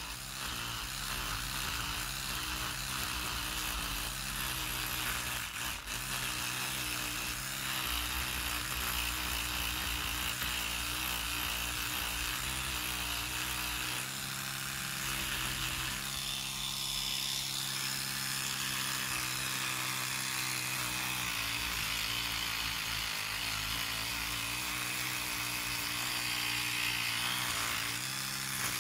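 Electric toothbrush running with a steady buzzing hum, its head pressed into the corners of a rusty pistol grip frame to brush off loose rust; the hum wavers slightly in pitch as the pressure changes.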